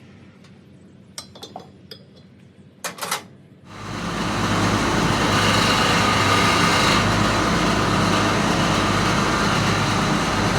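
A few light metal clicks and clinks, then a little under four seconds in an engine comes on quickly and runs loud and steady with a low hum.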